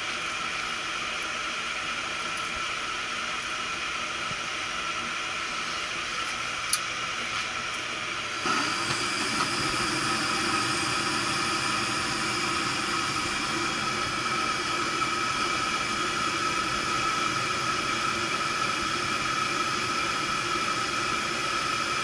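Gas furnace's induced-draft inducer fan running with a steady hum and a high whine. A single click comes about seven seconds in. About eight and a half seconds in, the sound steps up and fills out with a steady rushing noise as the gas burners light.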